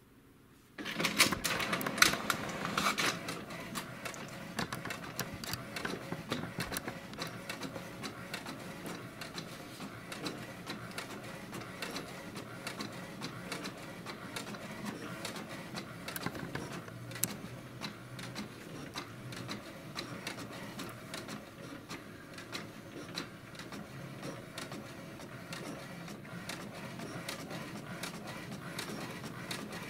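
HP DeskJet 2130 inkjet printer starting about a second in with a short burst of loud clicks and clatter as it grabs the sheet. It then prints steadily, the print head running back and forth with rapid ticks and clicks as the paper advances; the pick-up roller is feeding the sheet properly.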